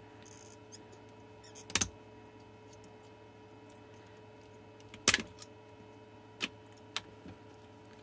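Side cutters snipping the nickel strip between the lithium-ion cells of a battery pack: four sharp snips, the loudest about five seconds in, over a faint steady hum.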